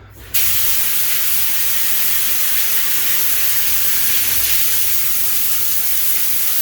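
Shower head spraying water at high pressure, a loud steady hiss of water that starts suddenly just after the start as it is turned on.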